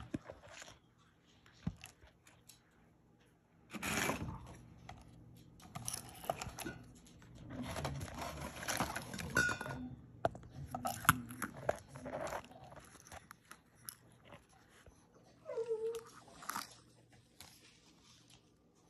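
Dog crunching kibble off the floor in irregular bursts, with a short whine about sixteen seconds in.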